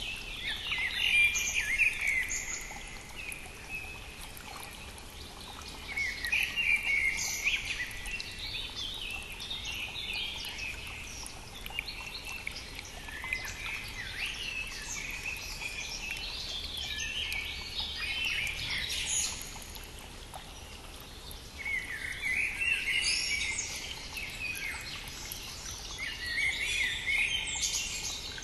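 Songbirds singing in several bursts of quick, high, warbling notes, over the steady rushing of a brook.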